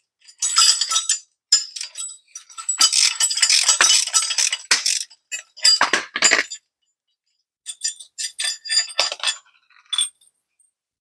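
Steel nuts and washers clinking against each other and against the bolts as the lift kit's pre-assembled hardware is taken apart. The clinks come in uneven clusters, busiest in the middle, with short pauses between.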